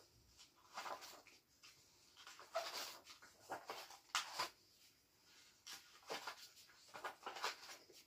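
Paper pages of a spiral-bound printed journal being turned by hand: several brief, soft rustling swishes.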